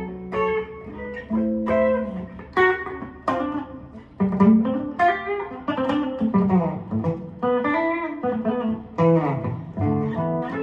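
Aria Pro II RS Wildcat electric guitar played with a clean tone on its bridge pickup: a single-note melodic line of picked notes, with several string bends.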